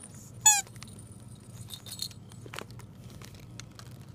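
Squeaky dog toy squeezed once by hand, giving one short, high squeak about half a second in. A few light clicks of handling follow.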